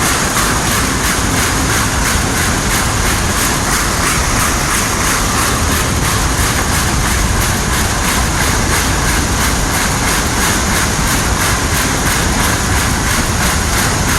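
Diesel engine of heavy farm machinery running steadily with a loud, even drone and a fast regular pulse.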